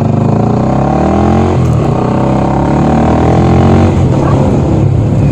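Honda CB 300's single-cylinder four-stroke engine through a Fortuna mini aftermarket sport exhaust, revs climbing for about a second and a half, dropping sharply, holding, then falling back to a lower speed about four seconds in.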